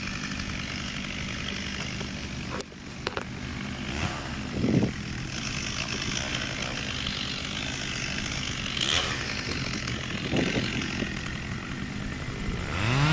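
Chainsaw running steadily, heard from afar, as it cuts into the base of a large elm trunk to fell the tree.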